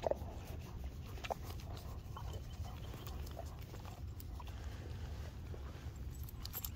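Quiet sounds of a dog being petted: scattered light clicks and faint rustling, such as collar tags and paws on gravel, over a steady low rumble.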